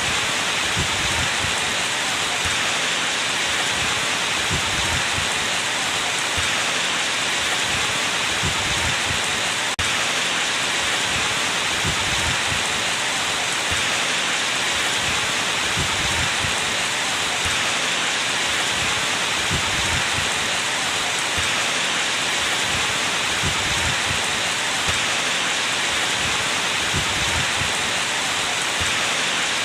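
Steady rain falling, an even hiss with irregular low thuds of drops landing.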